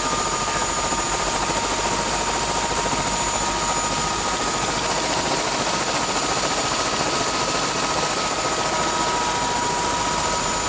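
Helicopter engine and rotor running on the ground before lift-off, heard from inside the cabin: a steady, unchanging noise with a high whine over it.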